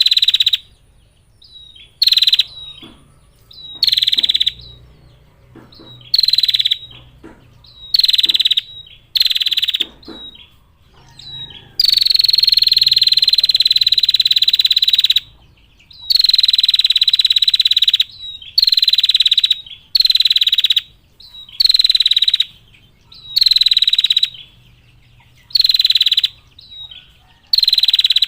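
Female prinia (prenjak) giving its rapid high trilling call, repeated in bursts of about a second every one to two seconds, with a long unbroken trill of over three seconds about halfway through.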